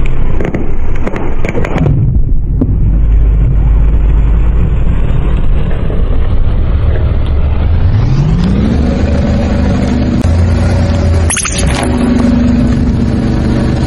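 Car engine running as a tyre rolls slowly over grit-strewn asphalt, with a few sharp cracks in the first two seconds. About eight seconds in the engine revs up, its pitch rising and then holding steady.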